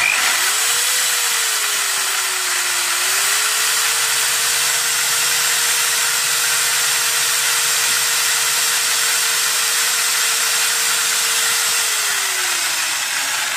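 Electric drill in a drill-guide stand drilling a hole in a PDR knockdown punch for a magnet. The motor spins up, dips under load about two to three seconds in, runs steadily, then winds down near the end.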